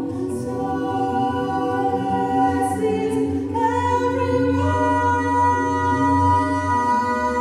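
Two women singing live in harmony into microphones, holding long notes that step up in pitch twice a little past the middle.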